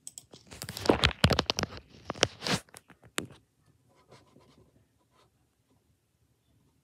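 Scratchy rustling noise in quick bursts for about two seconds, then a single sharp click a little after three seconds in.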